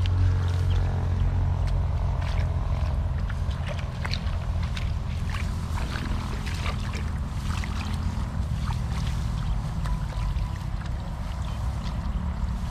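Hands splashing and sloshing in shallow muddy water, with scattered small splashes, over a steady low engine drone.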